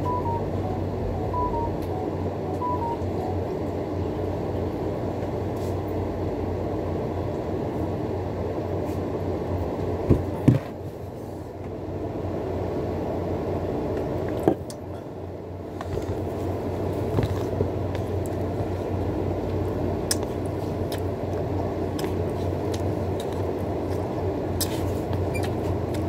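A steady low mechanical hum and rumble, with a few faint clicks near the end.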